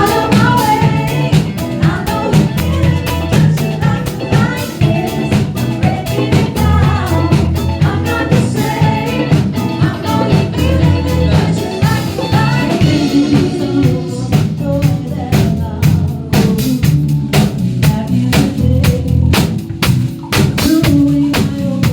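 A funk and disco cover band rehearsing: a singer over drum kit, bass and band. In the later part, the drum hits stand out more sharply.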